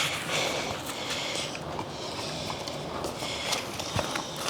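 Rustling and crinkling of packaging being handled, in irregular bursts of hiss with a few light clicks.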